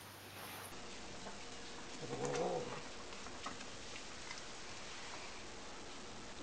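A long-haired cat gives one short, low, wavering moan about two seconds in while a ferret climbs over it, with a few light taps and rustles around it.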